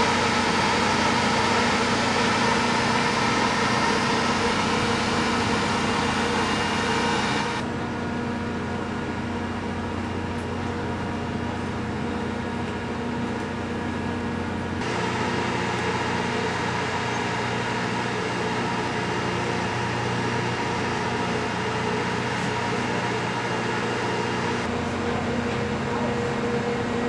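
Steady hum of a ship's machinery and ventilation, with several steady tones. The hum changes abruptly three times: it drops after about eight seconds, shifts again about halfway through and once more near the end.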